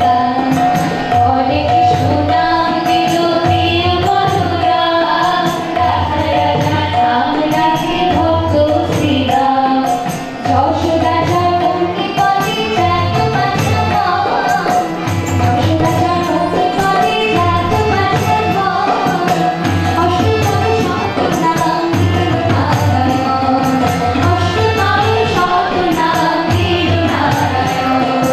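A woman singing a devotional song to harmonium accompaniment, joined by other women's voices, over a steady repeating drum beat.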